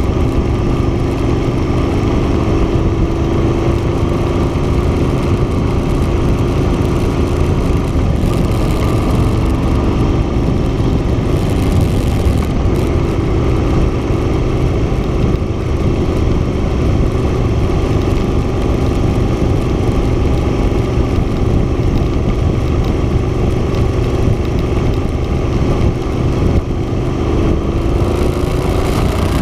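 Moto Guzzi Stelvio motorcycle's transverse V-twin running at a steady cruise, its note rising a little near the end, under heavy wind rush on the microphone.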